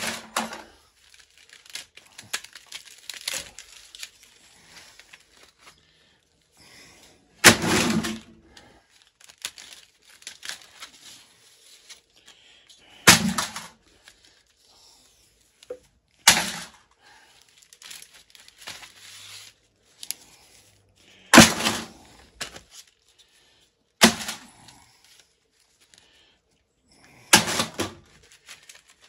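Thin steel laminations from a welder's transformer core being pulled out of the stack one by one, with a sharp metallic clank every few seconds (about seven in all) and quieter scraping and rattling of the plates in between. The core has delaminated, so the plates come away loose.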